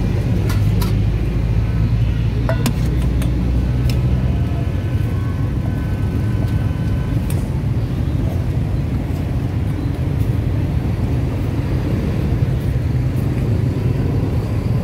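Steady street traffic with a vehicle engine running close by, and a few sharp clicks scattered through it.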